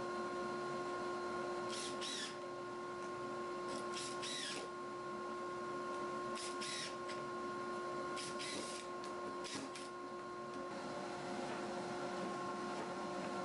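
Cordless drill running in about five short bursts, its motor whine spinning up and falling away each time, as screws are set into the wooden runner of a plywood sled.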